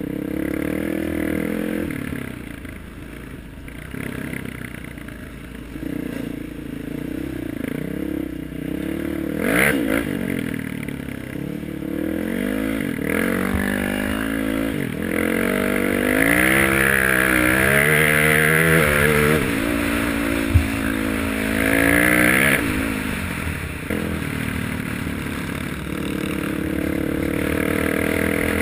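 Trail bike engine running under way, its pitch rising and falling repeatedly as the throttle opens and closes, heard from a handlebar-mounted camera. A single sharp knock sounds about two-thirds of the way through.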